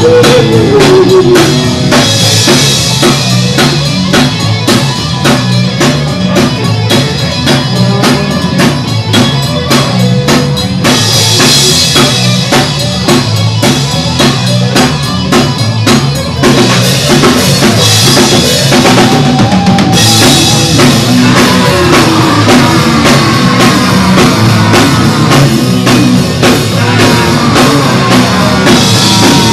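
Loud, fast punk rock band playing: drum kit pounding quick beats with crashing cymbals in bursts, under distorted electric guitar and bass.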